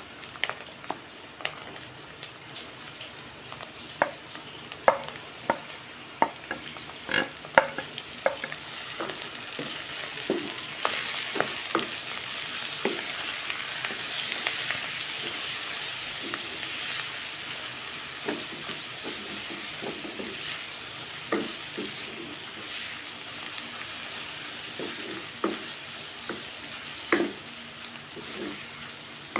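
Onions and minced meat sizzling in hot oil in a metal wok, stirred with a wooden spoon that knocks and scrapes against the pan. The sizzle swells about ten seconds in.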